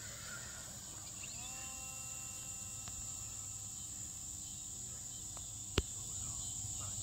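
Steady high-pitched insect chirring from the surrounding field. From about a second in there is a faint steady whine, and near the end a single sharp click.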